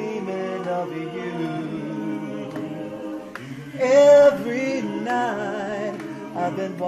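Mixed choir singing a cappella in held, harmonised chords. A louder voice comes in about four seconds in, wavering with vibrato.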